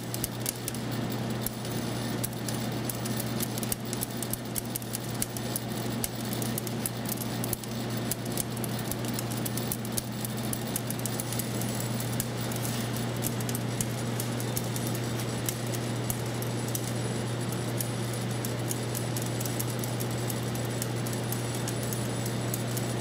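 Vibratory feeder humming steadily as it feeds wheat kernels, with a dense, continuous patter of small ticks and rattles from the kernels in the feeder.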